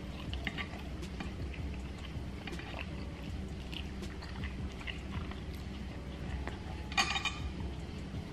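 Quiet close-miked chewing of pot roast, with small wet mouth clicks over a steady low room hum. About seven seconds in comes a short clatter as a plastic fork is set down in the glass dish.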